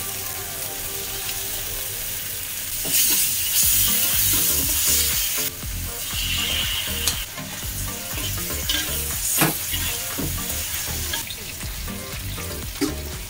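Food frying in oil in a black iron wok, sizzling steadily while a metal spatula stirs and scrapes it with occasional clicks against the pan. The sizzle swells much louder about three seconds in, then settles back.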